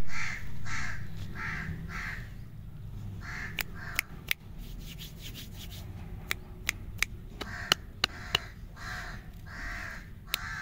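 A crow cawing repeatedly, a quick run of about five caws half a second apart at the start and more caws later on. Sharp clicks begin about three and a half seconds in as hands handle the wrapped lollipops.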